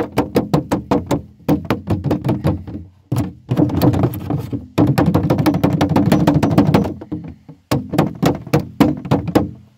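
Hammer blows on the torn aluminum hull of a Sportspal canoe around a slug hole, beating the ripped metal flat. Quick taps come about five a second in several runs with brief pauses between them.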